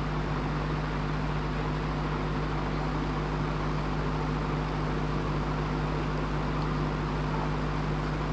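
Steady machinery hum of a parked passenger train's onboard equipment heard inside the coach: a constant low drone with a broad hiss over it, unchanging throughout.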